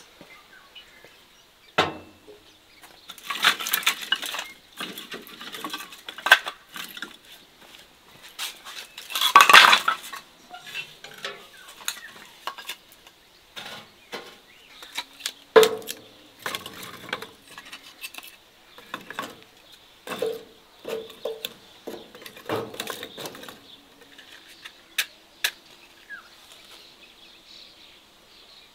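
Kitchen dishes and utensils clinking and knocking at irregular intervals, some strikes ringing briefly, with a longer, louder clatter about ten seconds in.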